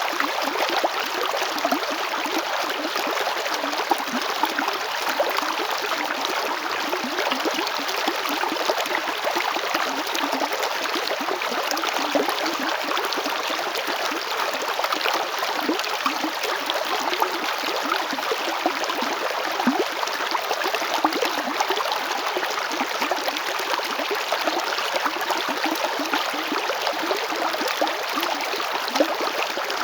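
River water flowing and babbling over stones, a steady rushing with dense small splashes and gurgles.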